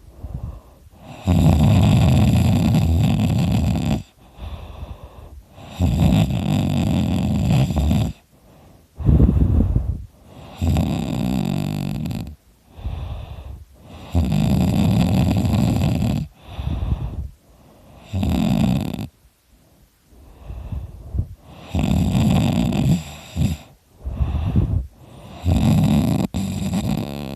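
A sleeping person snoring very loud: long snores of two to three seconds each, about every four seconds, with softer breaths between them.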